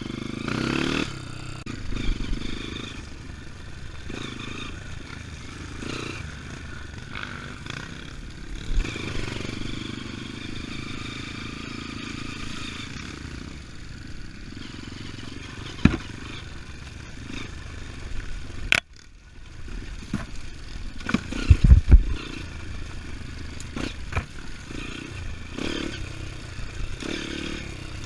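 A 230 cc trail motorcycle engine running while being ridden off-road, rising and falling with the throttle, with clatter and scraping mixed in. There are a few sharp knocks, and the loudest moment is a brief run of heavy thuds a little past the middle.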